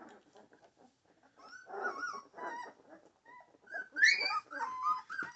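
Young American Pit Bull Terrier puppies whimpering in short, high-pitched cries that rise and fall, loudest about four seconds in.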